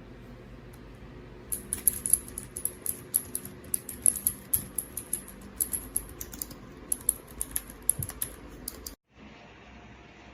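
Typing on a Rakk Pirah 66 wireless mechanical keyboard with Gateron Milk Yellow linear switches: a fast, uneven run of key clacks that starts about a second and a half in and stops near nine seconds.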